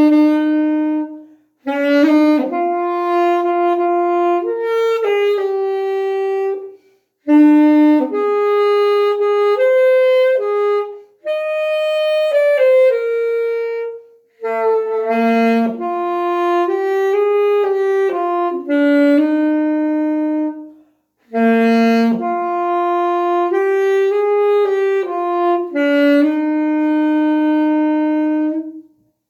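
Solo saxophone playing a slow melody, one note at a time, in phrases of a few seconds with short breaks between them; the last note is held and stops near the end.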